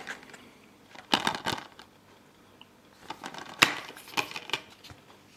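A Blu-ray case being handled and opened: a cluster of clicks and rattles about a second in, then more clicks with one sharp snap about three and a half seconds in.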